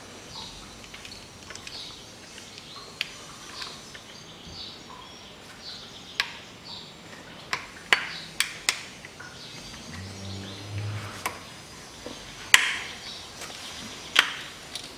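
Hand work in a car's engine bay: scattered sharp clicks and knocks of clamps, fittings and tools being handled while the coolant hoses are taken off, the loudest knock about two-thirds of the way through. A brief low hum sounds around ten seconds in.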